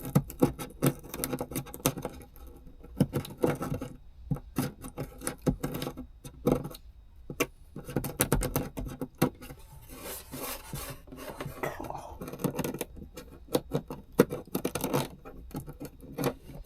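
Craft knife scraping and cutting at the ragged edge of a freshly drilled hole in wood, in many short, irregular strokes.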